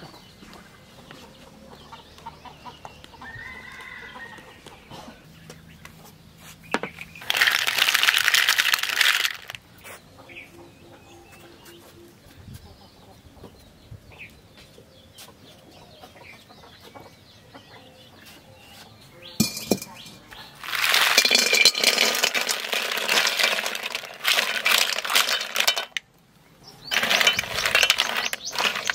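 Freshwater mussel shells clattering and clinking against each other and the metal pot as they are handled and stirred by hand. The sound comes in three loud spells of a few seconds each, the longest about two thirds of the way through.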